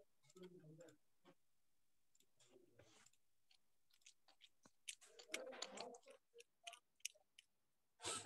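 Near silence with scattered faint clicks and soft rustling, typical of a computer mouse and keyboard being used while a screen share is restarted.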